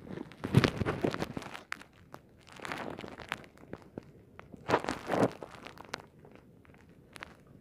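Sound picked up by a camera held underwater in shallow water: three swishing surges of water noise about two seconds apart, with scattered sharp clicks, dying down to a faint hiss after about five and a half seconds.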